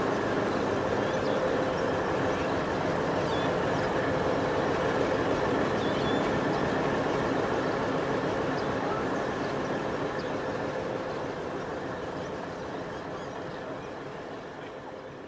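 SAR 930 class Alco diesel-electric locomotive's V12 251 diesel engine idling steadily with the locomotive standing still. The engine sound fades away over the last several seconds.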